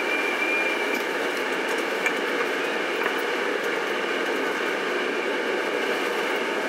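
Steady running noise heard inside a moving bus, with a faint high whistle during the first second and a few light ticks from rattling fittings.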